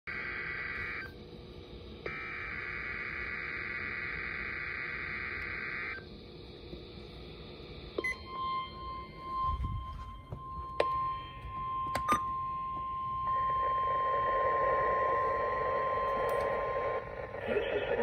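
NOAA Weather Radio alert broadcast through a weather alert radio's speaker: warbling, buzzy SAME digital header bursts, then the steady 1050 Hz warning alarm tone from about 8 seconds until near the end, with a few handling clicks. From about 13 seconds a rushing radio static joins the tone.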